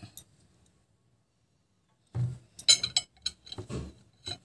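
A ceramic plate clinking and knocking as hands handle and press a bread sandwich down on it. After about two seconds of near silence come a string of sharp clinks and soft knocks.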